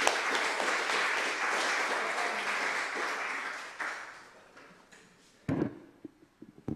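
Small audience clapping, fading out about four to five seconds in. Two short thumps follow near the end.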